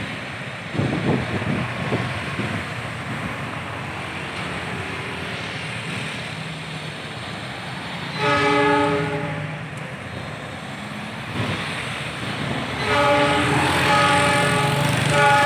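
Diesel locomotive horn of an approaching ballast train sounding a multi-tone chord twice: a short blast about eight seconds in and a longer one from about thirteen seconds on. Under it, steady street traffic with cars and motorbikes passing.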